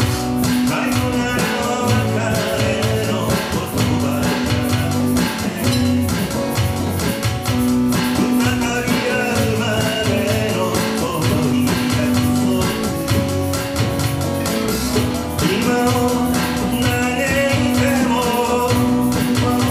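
Small live band playing a pop ballad: a man singing over strummed acoustic guitar, electric bass and an electronic drum kit keeping a steady beat.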